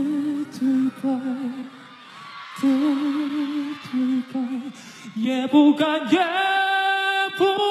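Male solo voice singing with a wide vibrato and almost no accompaniment. About five seconds in it slides up into one long, held high note.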